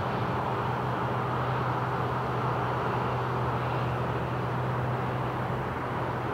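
Steady airport background drone: a low hum under an even hiss, with no breaks or changes.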